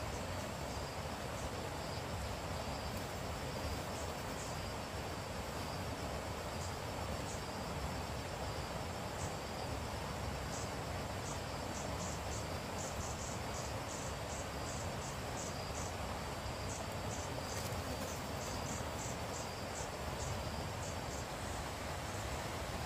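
Insects chirping in the forest: a steady high thin trill with short high chirps on top, sparse at first, then coming in quick runs from about halfway and stopping shortly before the end, over a steady background hiss.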